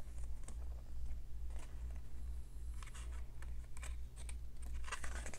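Paper pages of a book being turned and handled, with soft rustles and crinkles that are clearest about three and five seconds in, over a steady low hum.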